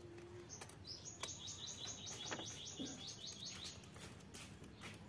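A small animal's chirping call: a fast, even run of about fourteen short falling chirps, some five a second, lasting nearly three seconds, with a few faint knocks around it.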